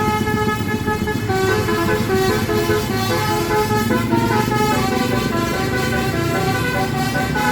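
Telolet multi-tone air horn on a Tunggal Jaya coach bus playing a tune, loud and continuous, stepping from note to note, over a low rumble.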